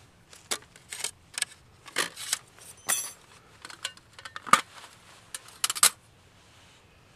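Hinged steel panels of a Firebox folding camp stove clicking and clinking as it is unfolded and set up: a string of sharp metallic clicks, some briefly ringing, the loudest a little past halfway, stopping about six seconds in.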